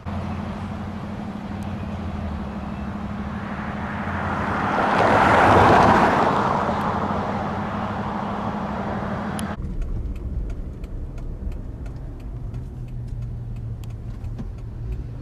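Car driving in traffic: a steady low engine and road hum, with a passing vehicle's noise swelling and fading about six seconds in. About nine and a half seconds in, the hiss cuts off suddenly and a muffled low rumble remains.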